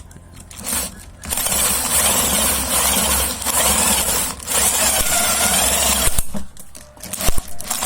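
Electric drill spinning a hand-crank grinder as it grinds field crabs: a loud grinding whir starts about a second in, dips briefly midway and stops about six seconds in.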